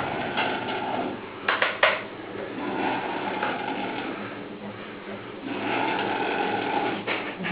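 A person snoring: two long snores, the first from the start lasting about two seconds and the second beginning about five and a half seconds in, with quieter breathing between them.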